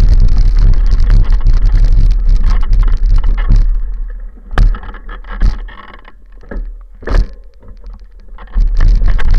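A mountain bike riding on a gravel path, heard through a handlebar-mounted action camera: heavy low rumble of wind and frame vibration on the microphone with the knobby tyre crunching over gravel. About four seconds in the rumble drops away and a few sharp knocks and rattles stand out, then the loud rumble returns near the end.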